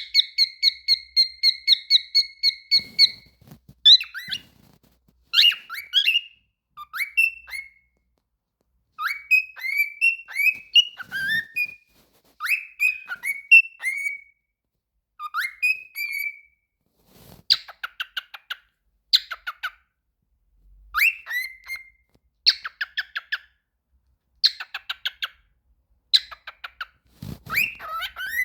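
Cockatiel singing: it opens with a fast run of repeated whistled notes lasting about three seconds, then goes on in short phrases of rising, swooping whistles and rapid chattering trills, with brief pauses between them.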